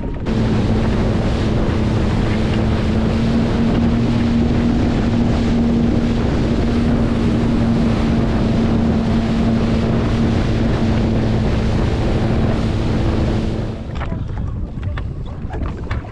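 Sea-Doo Fish Pro jet ski running at a steady engine speed: a constant drone with rushing wind and water on the microphone. It drops off sharply near the end.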